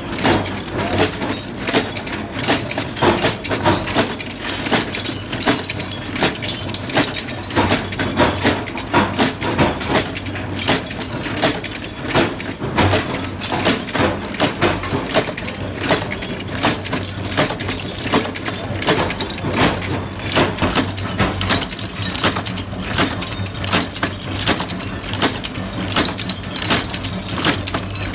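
Small metal bulb-holder shells clinking and jangling as they are stirred around in a sheet-metal feed tray, over the steady rapid clatter and low hum of the bulb-holder making machine running.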